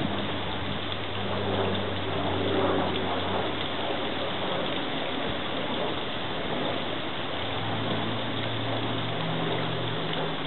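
Steady rush of running water from a backyard fountain, with a low hum in the first few seconds and again near the end.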